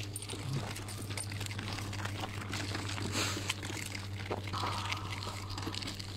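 Crunching and crackling of footsteps and a pushed pet cart on a dirt trail strewn with dry leaves, many small irregular crunches over a steady low hum.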